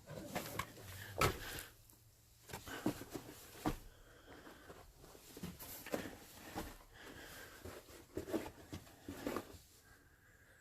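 Irregular footsteps, knocks and scrapes on rocky ground inside a mine tunnel, with the sharpest knock about a second in.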